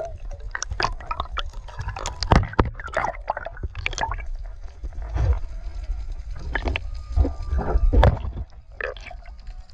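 Seawater sloshing and gurgling around an action camera dipped at and below the surface, with irregular splashes and drips.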